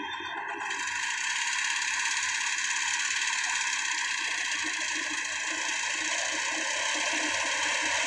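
FMWORLD crawler combine harvester running while it cuts rice: a rapid, regular engine pulse under a steady high hiss, growing louder about a second in.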